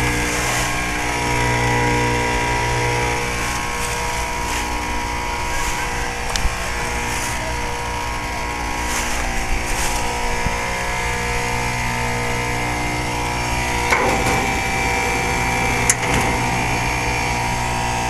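1989 Lennox heat pump outdoor unit running, its compressor and condenser fan giving a steady hum with a pitched drone. The drone eases a few seconds in and comes back strongly about three-quarters of the way through. The unit is running in cooling mode rather than defrosting.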